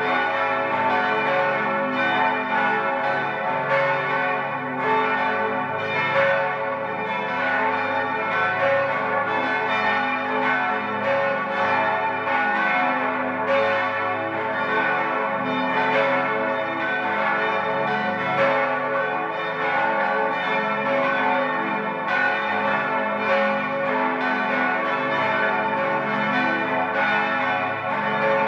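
Five swinging church bells of St. Ottilien Archabbey (bells 2, 4, 5, 6 and 8, tuned a°, c♯′, e′, f♯′, a′) ringing together in a full peal, their strokes overlapping into a steady, continuous chord.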